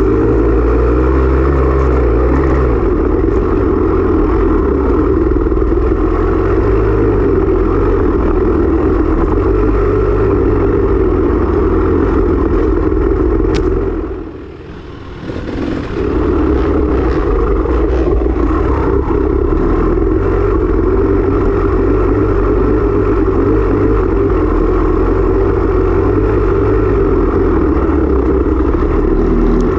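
Off-road motorcycle engine running continuously under race riding, with a brief drop in level about halfway through before it picks up again.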